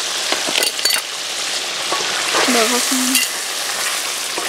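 Goose meat and spices frying in a metal karahi, a steady hiss of sizzling as a wooden spatula stirs in fresh chili powder, with a few short clicks of the spatula against the pan.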